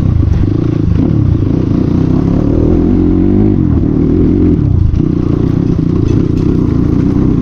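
CX250R dirt bike's engine running loud through an exhaust with the dB killer removed, its note dropping and rising again with the throttle over a rough dirt road.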